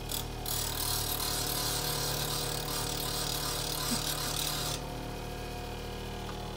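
Bench grinder running with a steady hum while a chisel's steel bevel is pressed to the spinning wheel, giving a hissing grind that lasts about four and a half seconds and stops when the blade is lifted off: hollow-grinding the chisel's bevel.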